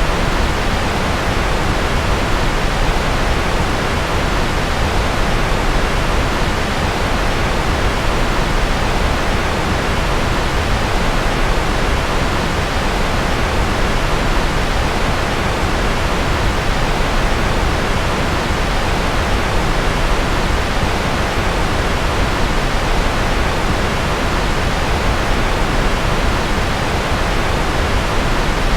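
Steady, unbroken rushing noise, a sleep-aid noise track billed as rocket noise, with no tones, rhythm or changes in level.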